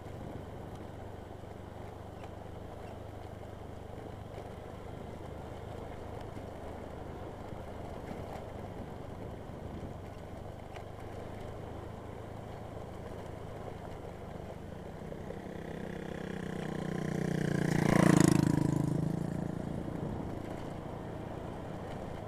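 A small vehicle engine running steadily on the move, with road and wind noise. Near the end another vehicle passes close, swelling to a loud peak and fading away.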